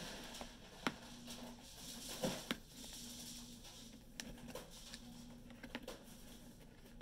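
Faint stirring of slime in a plastic bowl with a plastic spoon, broken by a handful of sharp clicks as the spoon knocks against the bowl.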